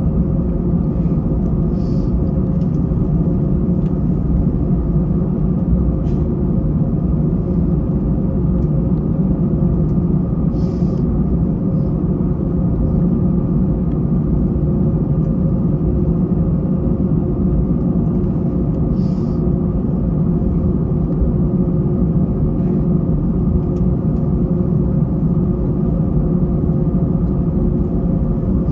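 Airbus A321-200 cabin noise while taxiing: a steady low rumble with a constant hum from the jet engines at low power. A few faint, short hisses come through now and then.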